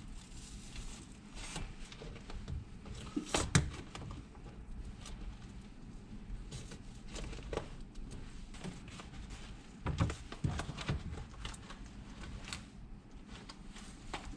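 Pliers gripping and prying the old plastic stud soleplate off a football boot: irregular clicks, knocks and cracks of the plastic giving way. There is one sharp crack about three and a half seconds in and a cluster of knocks around ten seconds.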